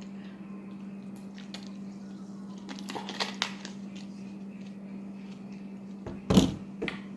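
Someone eating a mukbang meal of beef ravioli and breadsticks: scattered small clicks and chewing sounds, with one loud knock about six seconds in. A steady low electrical hum runs underneath.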